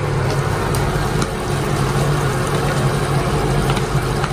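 Steady low hum of a running fan motor, with an even hiss over it.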